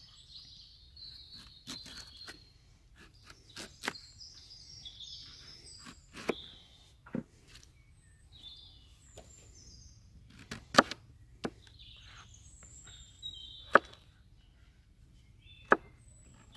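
Songbirds chirping and singing, with a handful of sharp knocks at irregular intervals, the loudest about eleven seconds in.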